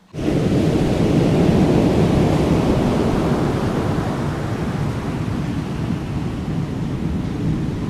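Deep, steady rush of ocean surf, starting suddenly and easing slightly toward the end.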